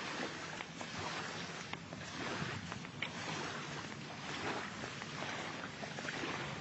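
Steady outdoor noise of wind and water, with a few faint small clicks.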